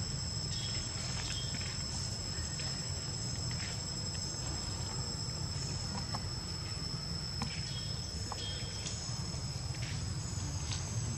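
Insects droning steadily in two high-pitched tones, over a low steady rumble, with a few faint clicks scattered through.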